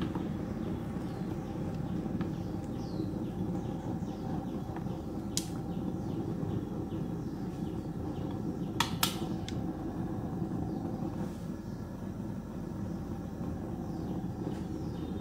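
Large aluminium pot boiling hard on a stove, a steady low rumble of rolling boil and burner. A few sharp clicks cut through it, one about five seconds in and two in quick succession near the middle.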